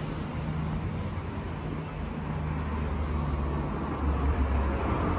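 Road traffic: a motor vehicle's engine hum and tyre noise, growing louder about four seconds in as it comes closer.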